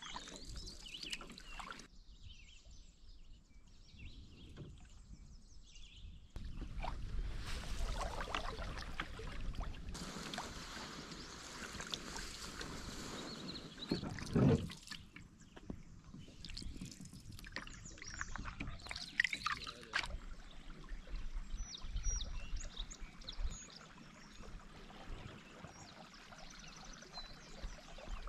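Canoe paddling on calm water: a wooden paddle blade dipping and pulling through the water, with water trickling and dripping off the blade between strokes. One louder stroke comes about halfway through.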